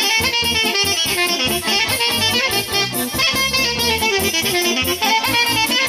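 Live Romanian folk dance music in an instrumental break between sung verses: a saxophone plays the melody over band accompaniment with a steady beat.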